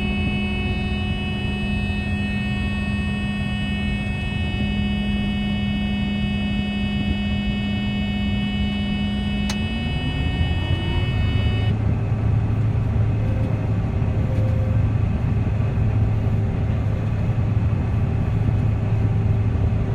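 John Deere 9400 combine running steadily with a high-pitched whine. About ten seconds in there is a click and a rising tone, then the whine stops and a steadier, lower drone carries on.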